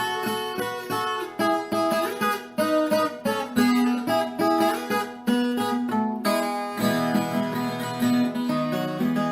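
Instrumental moda de viola: a viola caipira (Brazilian ten-string folk guitar) plucked and strummed in a steady rhythmic pattern of picked notes and chords.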